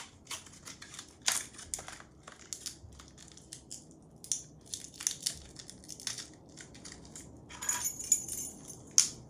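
MicroSD card retail packaging being torn open and handled: a string of irregular crackles and clicks, with a loud click near the end.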